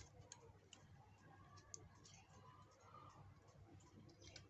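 Faint, scattered clicks and ticks of a small precision screwdriver driving screws into a feature phone's plastic back housing, over near silence.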